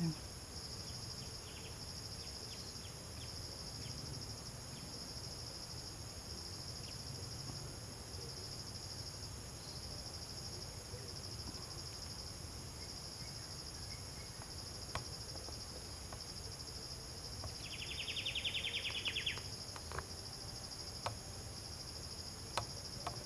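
Steady chorus of insects droning at two high pitches. About eighteen seconds in, a louder, rapidly pulsing insect buzz lasts about two seconds, with a few faint clicks scattered through.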